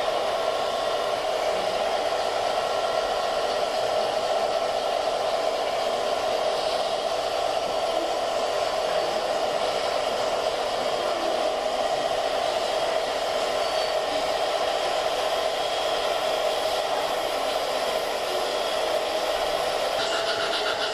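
Steady whirring rumble of gauge 1 model trains rolling along the layout's track. A faint, fast, even rattle joins in near the end.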